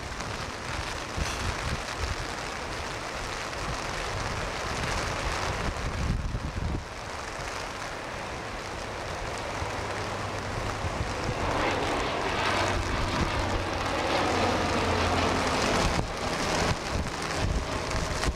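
Gusting wind on the microphone over heavy surf, with a Japan Coast Guard twin-engine turboprop plane flying over: its propeller drone comes in about seven seconds in, grows louder and peaks a few seconds before the end.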